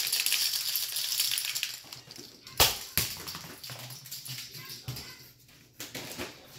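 A Shorty Bull puppy rummaging at a plastic dog-food bag: loud crinkling for about the first two seconds, then two sharp knocks a moment apart, followed by quieter rustling and scuffling.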